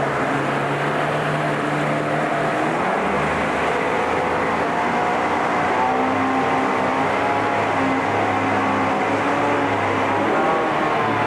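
1997 Mercury 40 hp three-cylinder two-stroke outboard running in forward gear in a test tank, its speed wandering slightly. The propeller cavitates a little in the tank.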